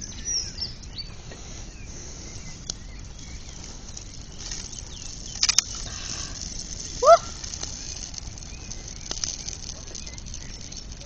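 Branch bonfire burning, with a steady hiss and a few sharp crackling pops, a cluster of them a little past halfway. About seven seconds in comes a short, loud, rising honk-like call.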